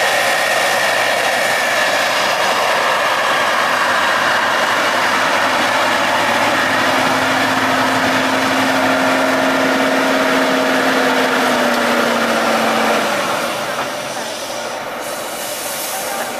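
Tatra 813 eight-wheeled trial truck's diesel engine working hard under load as the truck climbs a steep muddy slope, with a steady whine over the engine noise. The engine eases off near the end and the sound drops.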